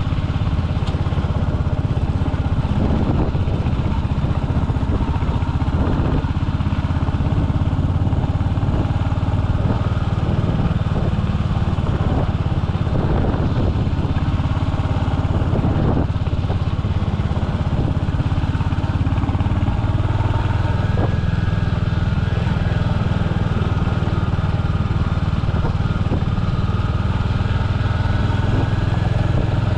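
Royal Enfield Hunter 350's single-cylinder engine running under way, with a few short knocks in the first half. The engine note rises a little about two-thirds in and then holds steady.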